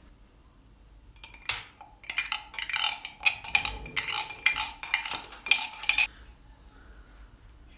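A utensil clinking rapidly against a bowl for about four and a half seconds, a dense run of ringing clinks that stops suddenly.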